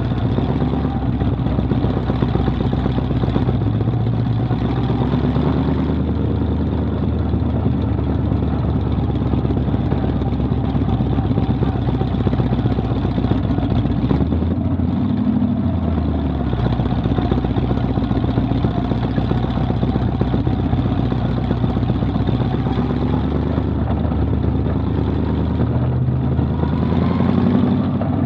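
Vintage modified dirt-track race car's engine running steadily, heard from inside the cockpit. The revs briefly rise and fall about halfway through and climb near the end.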